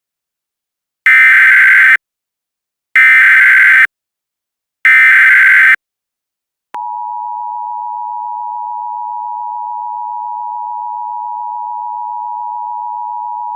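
Emergency Alert System tones: three loud bursts of SAME digital header data, each about a second long with a second's gap between them, then about seven seconds in, the steady two-tone EAS attention signal, quieter than the bursts. The tones mark the start of an emergency alert broadcast.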